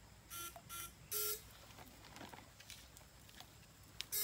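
Electric fishing shocker buzzing in three short bursts in quick succession, then once more near the end, as current is pulsed through the electrode rods in the stream water.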